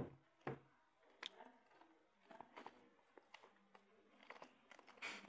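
Kittens playing: scattered soft clicks, taps and scratches of paws and claws on tile and on a cloth curtain, with a knock right at the start, another about half a second in, and a short scraping rustle near the end.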